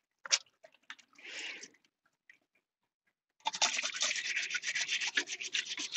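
Hands rubbing together with a few small clicks, then, about three and a half seconds in, a sink faucet comes on and water runs and splashes over the hands as they are washed.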